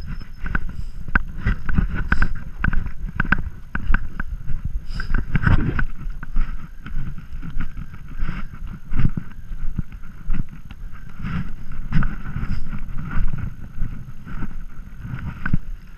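Mountain bike riding over rough dirt and grass: wind rumbling on the microphone, with frequent irregular knocks and rattles from the bike and camera mount jolting over the bumps.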